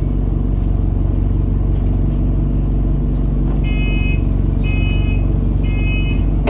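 ADL Enviro200 single-deck bus's diesel engine running steadily, heard from inside the bus. From about three and a half seconds in, a high electronic beep sounds about once a second, three times.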